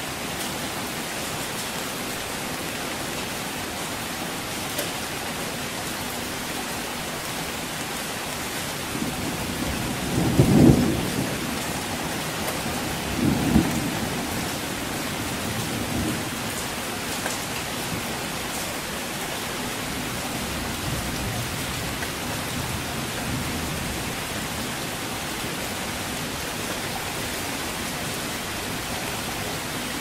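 Heavy rain falling steadily, with thunder rumbling twice about a third of the way in, the first the louder, and fainter rumbles after.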